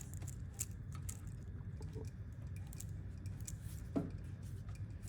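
Light clicks and scrapes of a wooden bowl blank being threaded onto a lathe chuck's worm screw, with one louder knock about four seconds in, over a low steady hum.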